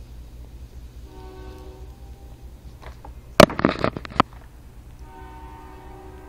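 A passing train rumbles steadily in the background, its horn sounding faintly as a held chord twice. About three and a half seconds in, a brief loud clatter of handling noise comes from the toy figure and its packaging being worked, lasting under a second.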